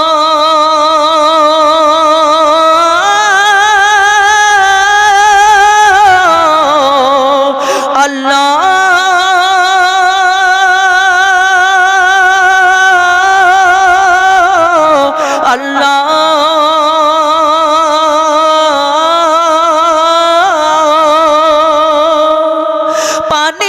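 A male singer holds long notes of a Bangla gazal (an Islamic devotional song) with a wide, even vibrato. His voice glides down to lower notes twice, with brief breath breaks about eight and fifteen seconds in.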